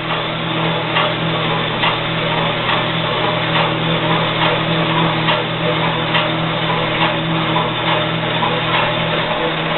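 VECTRAX 7 x 12 gear-head horizontal band saw running steadily, its 1 hp motor and geared head giving a steady hum with a light regular tick a little more than once a second, as the head lowers on the hydraulic down feed.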